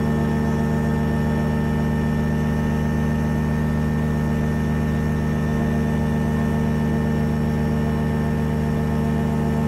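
Rotax 503 two-stroke twin-cylinder engine and pusher propeller of a Quad City Challenger II ultralight running steadily at constant power, heard from inside the cockpit.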